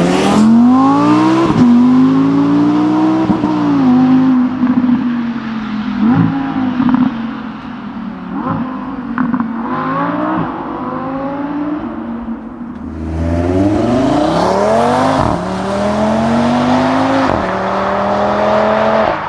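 Audi performance car engine accelerating hard, its pitch climbing and then dropping sharply at each of several upshifts. About two-thirds of the way in, a car accelerates past, its note falling as it goes by.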